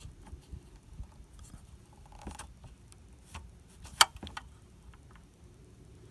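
Small plastic clicks and scrapes of a car fog light bulb being twisted in its housing, with one sharp click about four seconds in.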